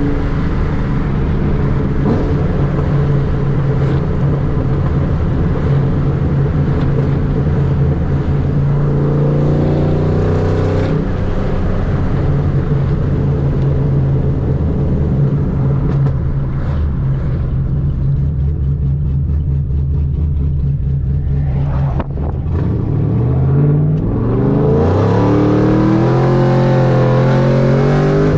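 2015 Camaro SS's V8 engine running steadily, its pitch climbing as it revs about nine seconds in and again from about twenty-three seconds in.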